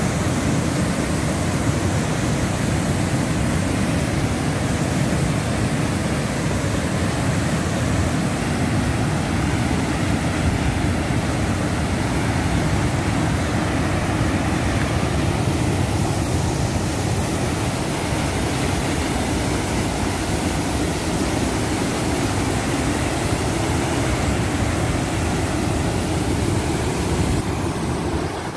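Steady roar of a river waterfall pouring over a rock ledge into whitewater rapids, heard close up.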